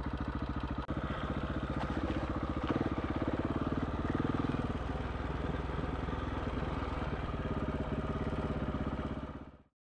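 KTM 690 Enduro R's single-cylinder four-stroke engine running with a steady pulse. It picks up about three seconds in as the bike rides off along a dirt trail, then fades out near the end.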